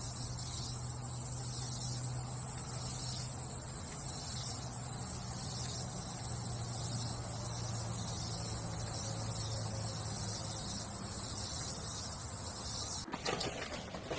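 Steady, unbroken high-pitched insect chorus over a low steady hum; both cut off abruptly about a second before the end.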